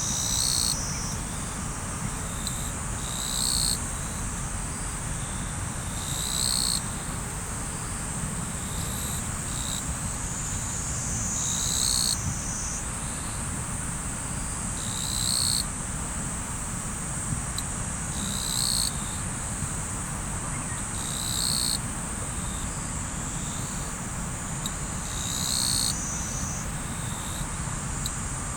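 Riverside night ambience: a steady high insect trill, with a louder chirping call repeating about every three seconds, over the low, even rush of flowing river water.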